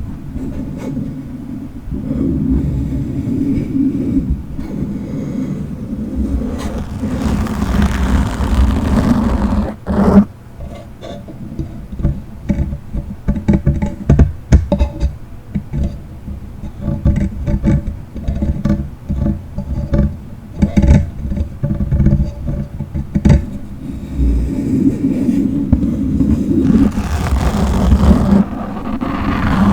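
Microphone being scratched and rubbed directly, giving a loud low rumble with crackles and pops. About seven seconds in and again near the end, the scratching turns brighter and hissier for a couple of seconds. From about ten seconds in there is a long run of quick sharp clicks and pops.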